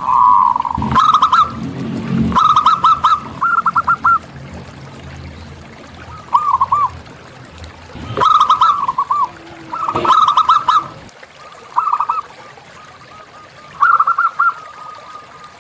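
Zebra doves (perkutut) cooing: repeated short phrases of quick, high notes, a new phrase every second or two, some phrases longer than others. A faint low rumble sits underneath and stops about eleven seconds in.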